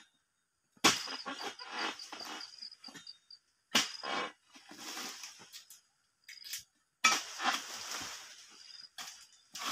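Pole-mounted harvesting sickle cutting at an oil palm's fronds: three sharp cracks, each followed by about a second of rustling leaves.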